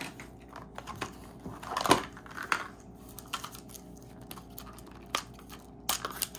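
Hard plastic capsule being pried open by hand: scattered clicks and rubbing of the plastic halves, with one sharp snap about two seconds in, and a wrapper crinkling as the mini item is pulled out.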